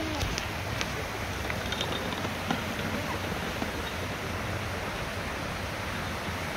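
Steady rush of river water pouring over a low weir.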